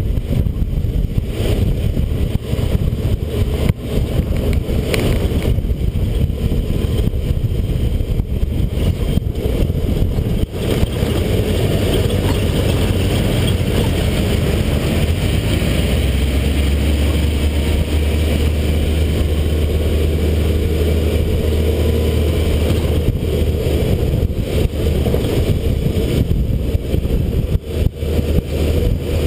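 ATV engine running at speed on a rough, cracked road, with steady road rumble and scattered knocks from the bumps. About halfway through, the engine note climbs for several seconds as it picks up speed.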